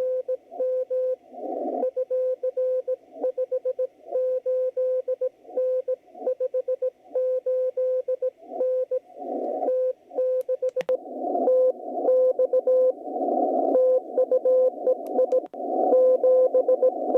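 Morse code (CW) signal from an HF ham receiver, a single steady tone keyed in dots and dashes, played through a BenQ treVolo voice-clarity speaker in its DSP noise-reduction mode. Atmospheric band noise comes in and out between the characters and gets heavier in the second half, with a sharp static crack about ten and a half seconds in.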